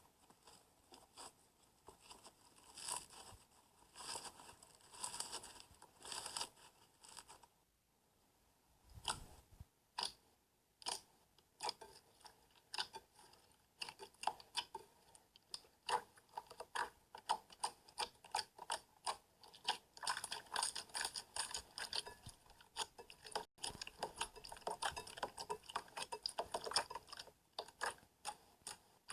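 Slime being squeezed and worked by hand, giving off crackling clicks and little pops; the clicks come in clusters at first, then fall sparse after a short lull and grow into a fast, dense crackle through the second half.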